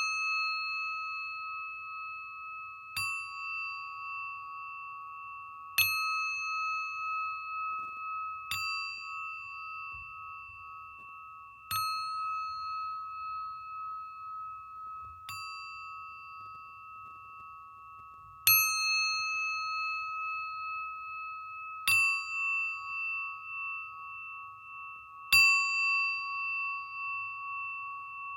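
A singing bowl struck with a mallet about every three seconds, eight times. Each strike rings on with a steady, wavering tone that overlaps the next.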